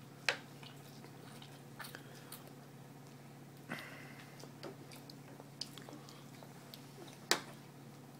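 A toddler eating spaghetti by hand: wet mouth smacks and chewing, with scattered short clicks, the sharpest just after the start and again near the end.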